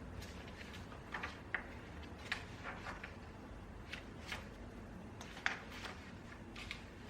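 Light, irregular taps and clicks at a desk, about a dozen of them with the sharpest near 1.5, 2.3 and 5.5 seconds in, over a low steady room hum.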